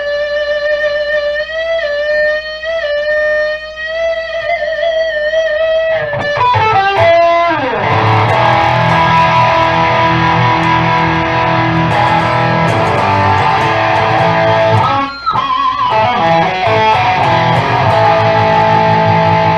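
Harley Benton DC Junior electric guitar with a magnetic sustainer pickup: a single note held with vibrato for about six seconds without dying away, then a slide down into thick, long-ringing chords, with a short break and a bend about fifteen seconds in.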